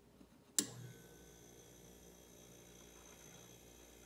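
Kenmore chest freezer's compressor kicking back on: a sharp click about half a second in as the temperature control is turned, then a steady hum as the compressor runs.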